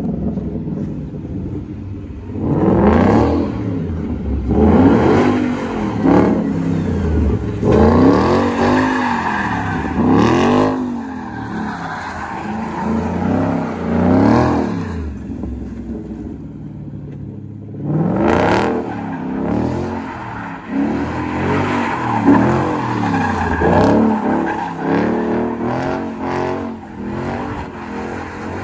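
Ford Mustang GT's 5.0 L Coyote V8 revved up and down again and again as the car is slid around in drifts, its pitch rising and falling every couple of seconds, with a brief lull a little past halfway. The rear tyres hiss and scrabble as they spin and slide on the loose, dusty pavement.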